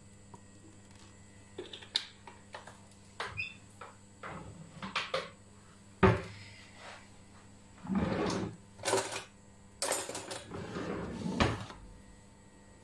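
Kitchen handling noises: scattered clicks and knocks, one sharp knock about halfway through, then several bursts of scraping and rustling.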